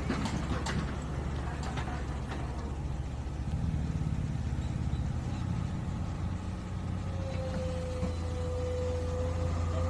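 Diesel engines of a Swaraj 735 FE farm tractor and a tracked excavator running steadily, with a low, even drone. A thin steady whine joins about seven seconds in.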